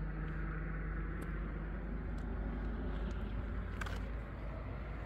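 A motor running steadily with a low rumble, with a few faint clicks over it.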